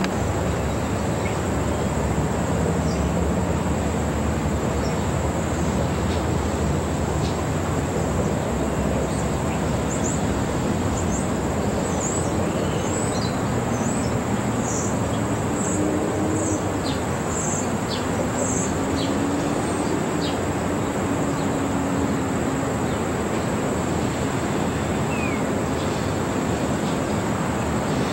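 A freight train rolling along the track at a distance: a steady low noise with no change in level, with short high bird chirps now and then in the middle.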